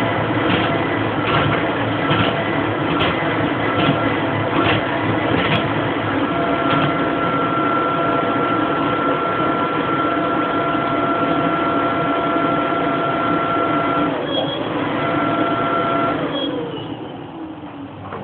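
Homemade wooden buoyancy-gravity engine running on low-pressure air from an electric blower: a steady hum and whine with regular clicks, about one a second, during the first several seconds. Near the end the whine slides down in pitch and the sound fades as the machine slows.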